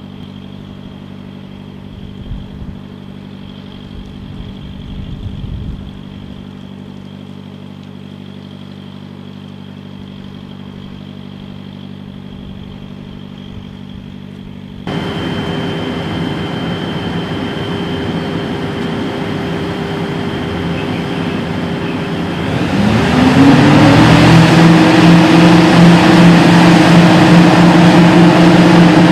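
Diesel engines of a Hitachi EX8000 mining excavator running with a steady hum that grows louder about halfway through. About three-quarters of the way in they rev up, rising in pitch and settling at a louder, higher steady note.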